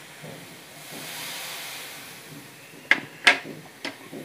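Water with turmeric and rock salt sizzling on a hot iron tawa: a soft hiss swells about a second in and fades, followed near the end by four sharp clicks.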